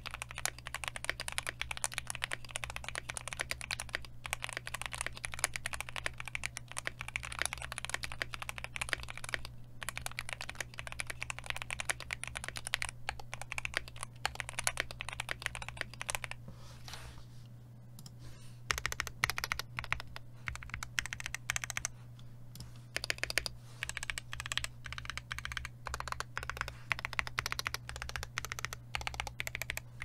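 Fast, continuous typing on a KBD8X Mk II tenkeyless custom mechanical keyboard with lubed Alpaca linear switches, a brass plate and GMK keycaps: dense runs of key clacks. A short break just past halfway, then the typing resumes in shorter runs, over a steady low hum.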